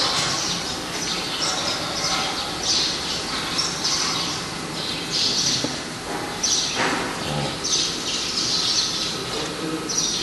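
Birds calling: short, high squawks repeating about once a second.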